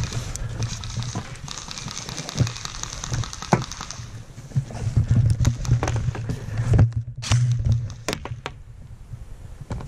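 Airsoft skirmish: many sharp clicks and pops from airsoft guns firing and BBs striking, with a dense run of clicks a couple of seconds in. Under them is a low rumbling handling or movement noise that comes and goes.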